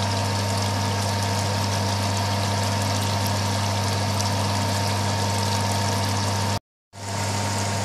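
Steady motor hum with an even hiss over it, like a kitchen fan running, holding one level throughout; it drops out for a moment about six and a half seconds in.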